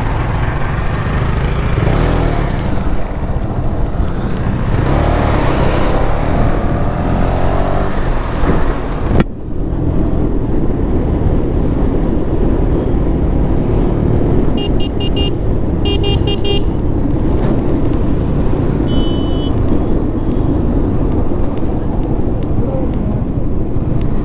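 A motorcycle running through traffic, heard from the rider's camera with heavy wind rumble on the microphone. The sound breaks off abruptly about nine seconds in and picks up again. Past the middle come two bursts of rapid horn beeps from passing vehicles, then a shorter honk a few seconds later.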